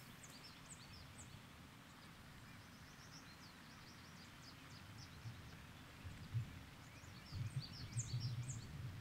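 Quiet open-air ambience with small birds chirping in many short, high notes. A few low rumbles come in the second half, the loudest about six seconds in.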